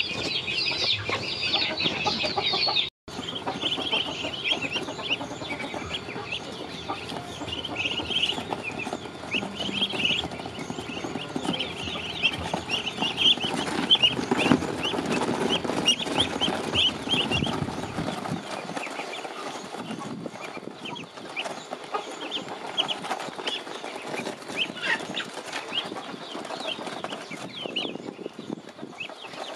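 A flock of ducklings peeping continuously in short high calls while they feed on a pile of rice and chopped greens. Rustling and handling noise runs under the peeps until a little past halfway. The sound cuts out for a moment about three seconds in.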